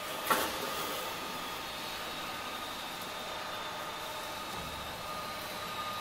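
Cable tray roll forming machine running steadily, with a steady mechanical hum and a thin high whine as the formed steel tray feeds out. A single sharp knock comes about a third of a second in.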